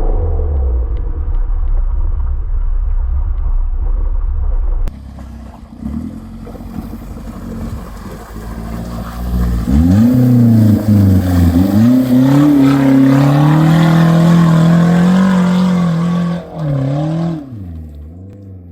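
Off-road 4x4's engine revving under load, its pitch rising and falling as the throttle is worked, then easing off near the end. Before that, a low, steady rumble.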